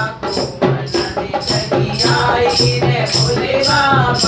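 Hindu devotional bhajan music: voices singing over a steady beat of jingling hand percussion, about three strikes a second, with a pulsing low drum beat underneath.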